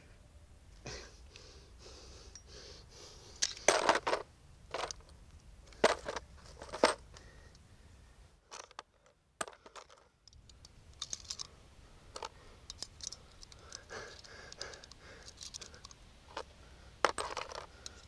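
Sharp metallic clicks of a semi-automatic pistol being handled and brass cartridges being pressed one by one into its magazine, with a brief quiet gap about halfway through.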